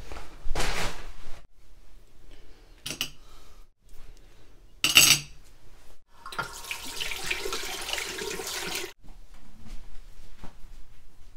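Household handling sounds: knocks and clinks as small metal accessories are set down on a tray and in a ceramic dish, the loudest about five seconds in. Then a steady rushing noise runs for about three seconds and stops abruptly.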